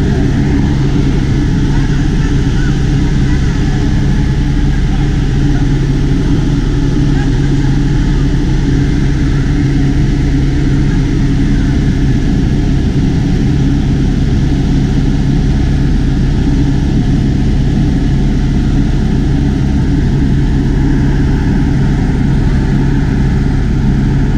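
Helicopter's engine and rotor drone heard from on board, loud and steady throughout with a strong low hum.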